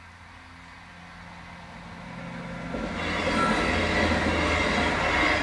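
Diesel passenger train approaching and passing over a level crossing. It grows louder over about three seconds, then runs past as a steady rush of wheels on rail.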